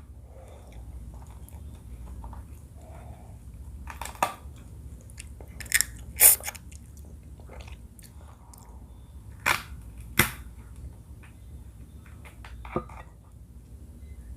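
A person chewing and biting into seafood crab papaya salad, with about six sharp, loud crunches between softer chewing; the loudest crunch comes about six seconds in.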